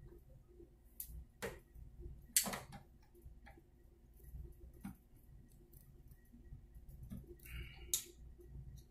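Metal wrench on the chrome coupling nut of a toilet flushometer valve as the nut is tightened: irregular sharp metal clicks and taps, the loudest about two and a half seconds in, and a short scrape just before a click near the end.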